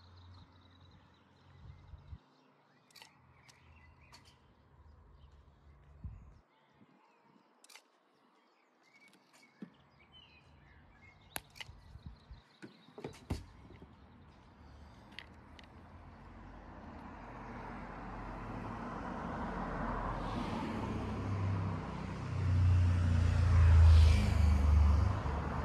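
Outdoor ambience: faint bird chirps and a few sharp clicks, then a vehicle approaching and passing, growing louder with a low rumble that peaks near the end.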